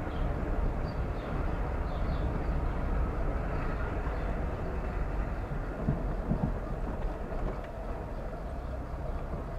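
Car driving: steady engine and tyre rumble from the road, with a few low thumps about six seconds in.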